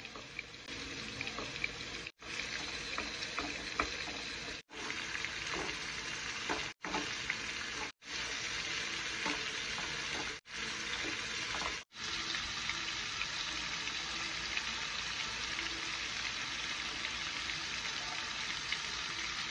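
Shrimp sizzling in hot oil in a frying pan while tongs turn them over, with small clicks of the tongs against the pan and shrimp. The sizzle is steady and is broken by several brief gaps of silence in the first twelve seconds.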